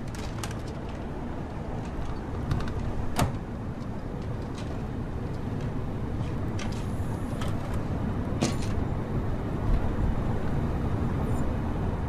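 Steady low rumble of a car heard from inside the cabin while driving, with a few sharp clicks and rattles, the loudest about three seconds in, as items in the centre console are handled and the dashboard car stereo is worked.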